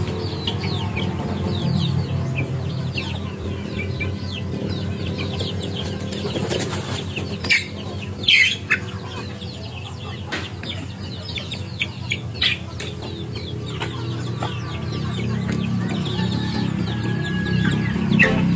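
A flock of young chickens cheeping and clucking while they feed, with many short high falling peeps, a few louder sharp sounds about halfway through, and a steady low hum underneath.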